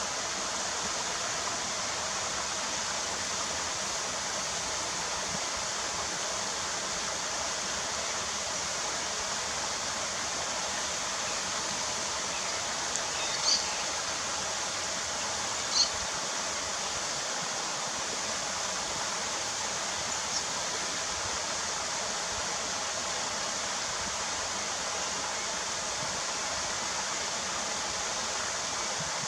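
Steady rushing noise, like running water or wind, with a few short, high bird chirps near the middle: two close together, then a fainter one.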